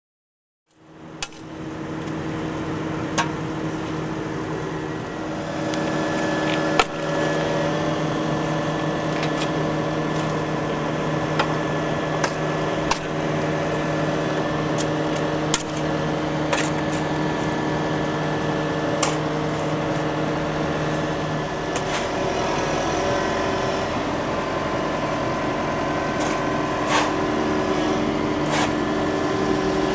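Volvo EW 140 C wheeled excavator running steadily at work, with sharp knocks and clanks every second or two. The sound sets in about a second in, and its note shifts about two-thirds of the way through.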